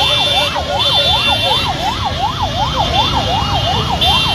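A vehicle siren on a fast yelp, its pitch sweeping rapidly up and down about two and a half times a second, over a low rumble of traffic. A shrill steady high tone sounds in short bursts, about a second in and again near the end.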